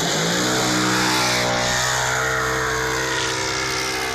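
Radio-controlled model airplane's engine opening up to full throttle for takeoff. Its pitch rises sharply, then holds steady and slowly grows fainter as the plane lifts off and climbs away.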